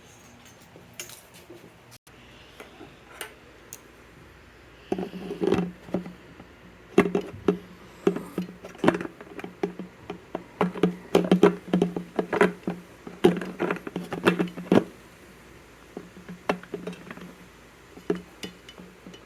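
Wrench tightening the nut on the fuel petcock fitting in a Vespa's metal gas tank: a quick run of metal clicks and clinks through the middle, with a few lighter taps before and after.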